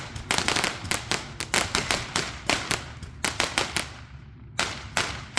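A 'Maschinegewehr' (machine-gun) firecracker going off in a rapid, irregular string of sharp bangs, several a second, with a short pause about four seconds in before a few more.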